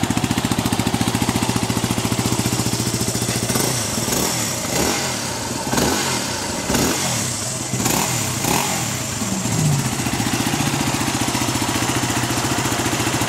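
Yamaha WR250's 250 cc single-cylinder four-stroke engine idling steadily, blipped several times in quick succession through the middle, each rev rising and falling, then settling back to idle.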